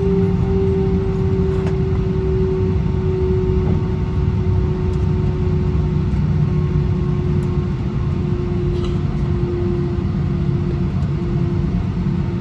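Airbus A319 cabin noise as the jet rolls out on the runway after landing: a steady low rumble from the engines and the wheels, heard from inside the cabin, with an engine tone that slowly drops in pitch as the aircraft slows.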